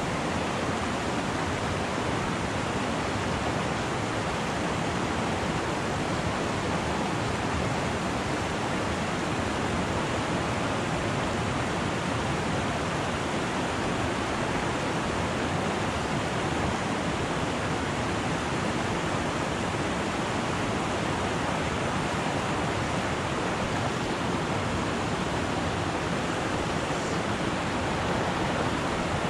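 Steady rushing of a fast mountain creek spilling over rocks and around a boulder.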